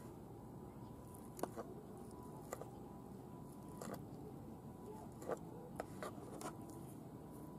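Faint, scattered clicks and scrapes of a kitchen utensil working a raw chicken tenderloin to strip out its tendon, about eight small ticks in all.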